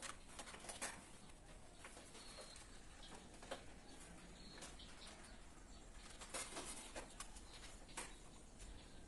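Faint scattered clicks and taps of hands and a small tool working among plastic miniature circuit breakers in a distribution board, with a low steady hum underneath.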